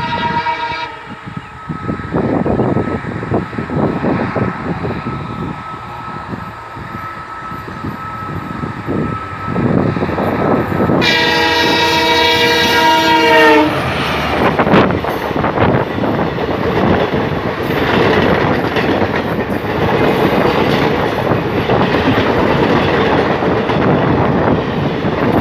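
An Indian Railways WDG-4 diesel-electric locomotive with an EMD 16-cylinder two-stroke engine approaches at speed hauling a passenger train. Its multi-tone horn sounds at the start and stops about a second in, and the engine and rail noise then grow louder. The horn blows again for about two and a half seconds as the locomotive passes, its pitch falling at the end, and the coaches then rush by with steady wheel-on-rail clickety-clack.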